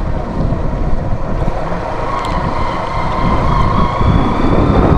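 Steady vehicle engine and road-traffic noise with wind buffeting the microphone, and a faint steady whine over it.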